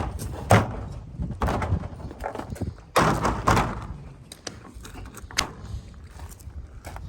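Irregular knocks, thuds and clattering from work on a shop's shutters, with the heaviest thumps about half a second in and around three seconds in.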